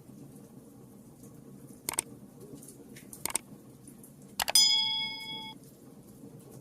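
Wood fire in a fireplace crackling softly, with two sharp pops. About four and a half seconds in, a loud metallic clink rings for about a second, then cuts off.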